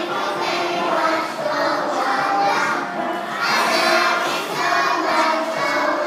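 A chorus of young children singing a song together loudly, many voices at once.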